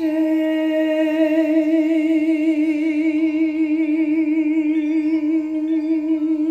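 A woman's voice holding one long sung note with a steady vibrato. Faint high chime tones ring behind it near the end.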